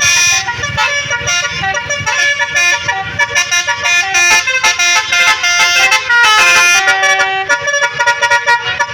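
Telolet multi-tone bus air horn playing a pop melody, quick short notes with a few longer held ones.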